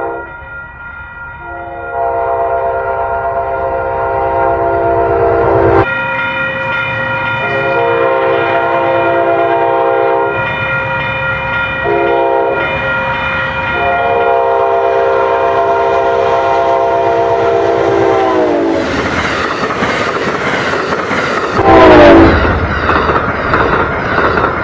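Amtrak locomotive horn blowing the grade-crossing signal, long, long, short, long, over a steadily ringing crossing bell. The last long blast drops in pitch as the locomotive passes, then come the rumble and wheel clatter of double-deck Superliner cars going by, with one loud bang near the end.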